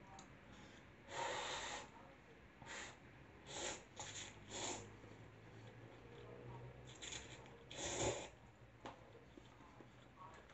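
A person slurping noodles off chopsticks: a string of short slurps, the longest about a second in and the loudest near eight seconds.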